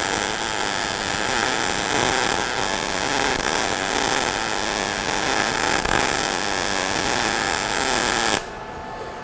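MIG welding arc from an ESAB Rebel 235 in smart-MIG mode, a short arc, sizzling steadily while laying an uphill cap pass in a groove on 3/8-inch steel plate, then cutting off suddenly near the end as the trigger is released.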